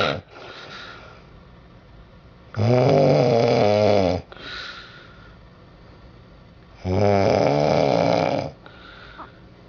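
A woman snoring loudly in her sleep: two long, pitched snores of about a second and a half each, some four seconds apart, each followed by a quieter breath.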